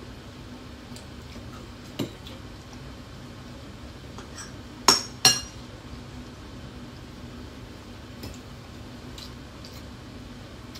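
Metal forks and spoons clinking against bowls and plates while eating: a sharp clink about two seconds in, then two loud ringing clinks in quick succession near the middle, with a few light taps after, over a faint steady hum.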